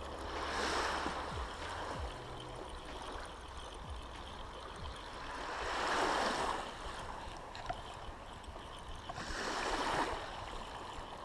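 Small, gentle waves breaking and washing over a pebble shore, swelling three times about four seconds apart.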